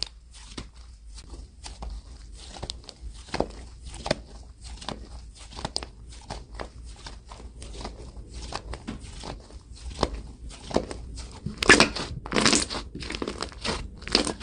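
Slime being pressed and squeezed by hand, giving a dense, irregular run of small crackling pops and clicks. A louder burst of crackles comes about twelve seconds in.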